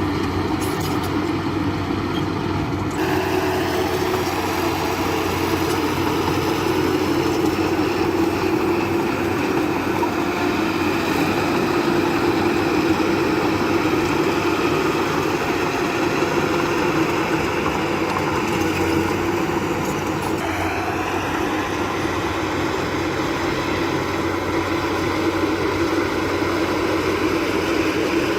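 Diesel engine of heavy earthmoving machinery running steadily, growing louder in its upper range about three seconds in.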